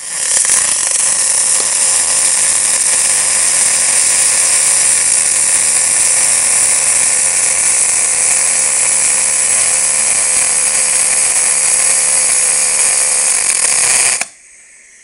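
MIG welding arc on aluminium from a Cebora Tri Star 1635/M under pure argon shielding gas: a loud, steady hiss that stops suddenly near the end as the weld is finished.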